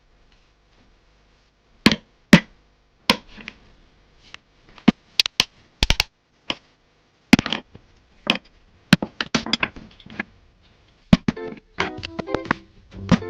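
Background music with plucked guitar: irregular sharp plucked notes, and fuller sustained chords coming in near the end.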